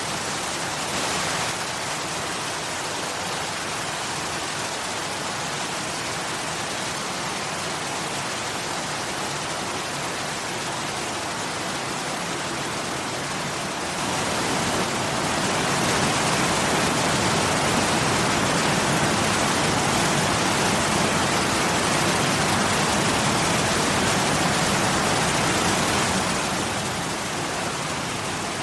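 Waterfall rushing with a steady roar of falling water, swelling louder about halfway through and easing back down near the end.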